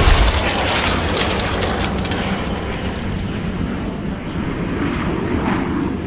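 Logo-intro sound effect: a deep boom at the start, followed by a long, noisy rumble that slowly fades, with crackling glitch ticks over its first few seconds.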